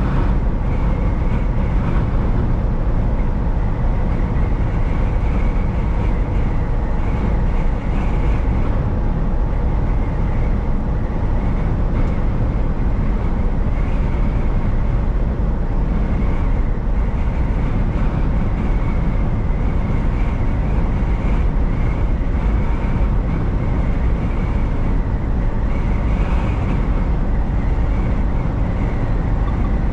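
Semi-truck driving steadily at highway speed, heard from inside the cab: a deep, even rumble of engine and road noise with no changes.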